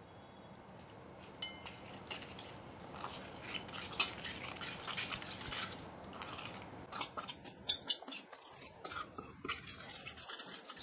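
Steel spoon stirring and scraping a thick masala paste in a stainless steel bowl, with light irregular clinks of the spoon against the bowl.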